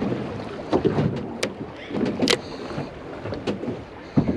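Choppy water lapping and slapping against the side of a small fishing boat's hull, with several sharp knocks.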